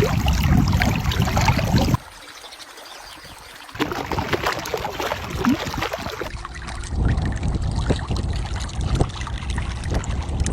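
Running water trickling like a stream, with a low rumble in parts. The sound drops off suddenly about two seconds in and comes back near four seconds.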